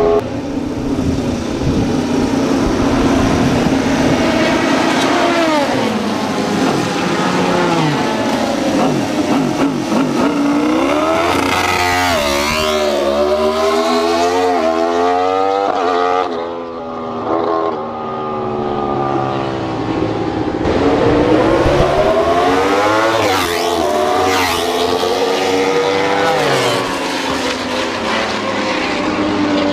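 MotoGP racing motorcycle engines at high revs on track, each climbing in pitch and dropping sharply at every upshift as the bikes accelerate past and away. This happens several times over, with a quieter dip near the middle.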